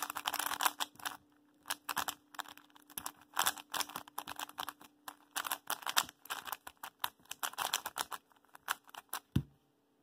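MF3RS3 M 3x3 speedcube, freshly set up with silicone lube on its corners, being turned by hand: quick runs of plastic clicks and clacks as the layers turn, in bursts with short pauses. One low thump near the end.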